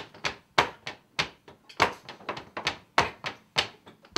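Hand percussion playing a steady beat: a sharp, strong hit about every 0.6 s, with lighter hits in between.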